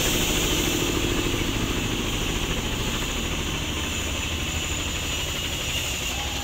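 A vehicle engine idling steadily, slowly growing fainter.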